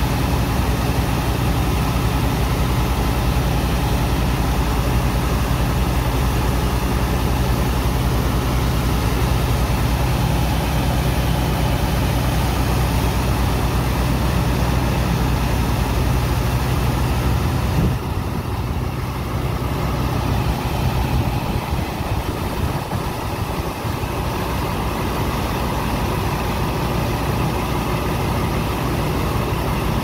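Dredger pump engine running steadily under the constant hiss of a high-pressure water jet washing sand into slurry. About halfway through, the engine's low hum drops away and the sound gets a little quieter, leaving mostly the rushing water.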